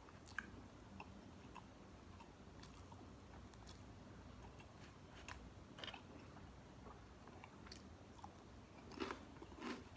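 Faint eating sounds of a person chewing crispy fried chicken: scattered soft crunches and mouth clicks, with a few louder bites near the end.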